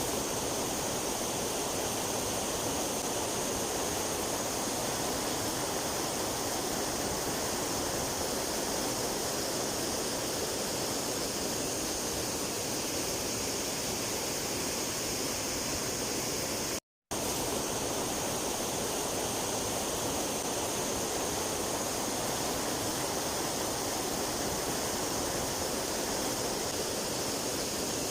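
Rushing water of a mountain stream: a steady, even hiss, which cuts out for a split second about two-thirds of the way through.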